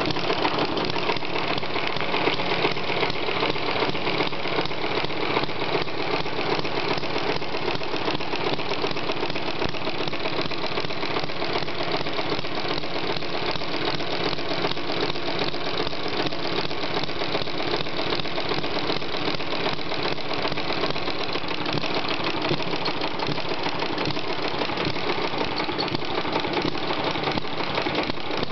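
Model Atkinson-cycle engine running steadily, with a fast, even mechanical clatter.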